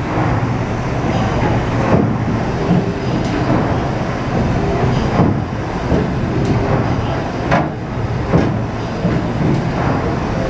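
PS Waverley's port paddle wheel turning, its feathering floats beating and churning the water, with spray rushing inside the paddle box: a loud, steady splashing rumble broken by a few sharper knocks.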